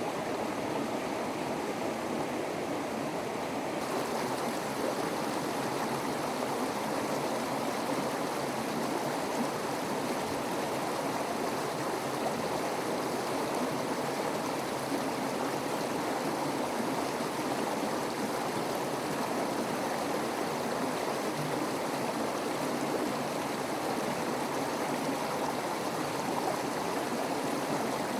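Running water, a steady rushing with no breaks, turning a little brighter in the treble about four seconds in.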